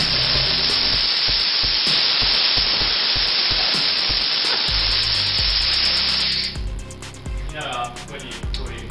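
Compressed air hissing loudly and steadily out of a paint spray gun's air hose, cutting off about six and a half seconds in.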